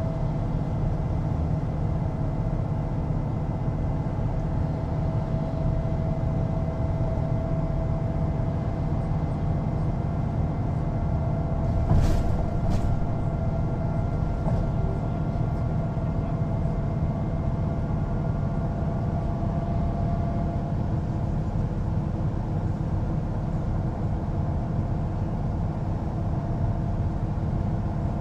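Mercedes-Benz O405NÜ low-floor bus under way, its six-cylinder diesel running steadily with a low rumble and a steady whining tone. Two sharp knocks come about twelve seconds in.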